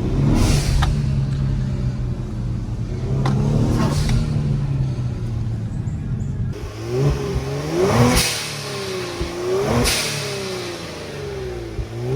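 Kia Stinger GT's twin-turbo V6 running with Forge intakes: steady at first, then revving up and down several times in the second half. Each throttle lift brings the whoosh of the Forge dual blow-off valves venting.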